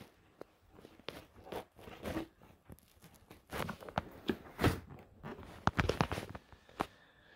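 Footsteps on a wooden floor with irregular knocks and rustles.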